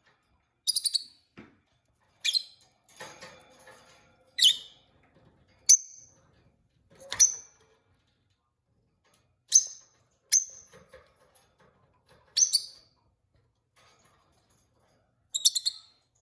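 Peach-faced lovebird giving short, shrill chirps every second or two, some as quick runs of two or three notes.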